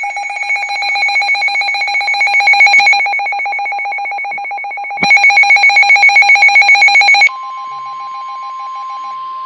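A rapidly pulsing, ringing electronic alert tone sounds for about five seconds, breaks off, then resumes louder for two more seconds. About seven seconds in it gives way to a steady single-pitch tone over faint hiss: the NOAA Weather Radio warning alarm tone that comes before a weather warning broadcast.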